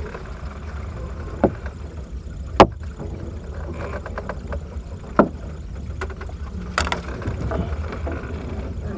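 Steady low rumble around a small boat, broken by four sharp knocks; the loudest comes about two and a half seconds in.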